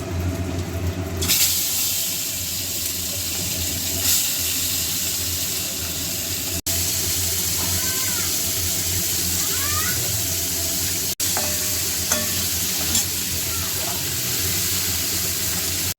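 Prawns frying in hot oil in a pan, sizzling steadily; the sizzle comes up about a second in and cuts out for an instant twice.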